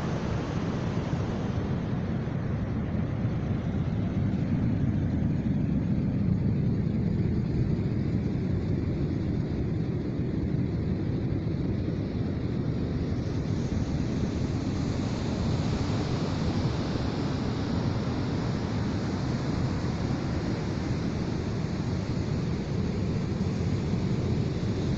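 Wind buffeting the microphone: a steady low rumble with no distinct sounds standing out.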